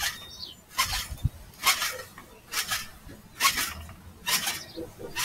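Trampoline springs jangling and squeaking with each bounce, about one bounce a second.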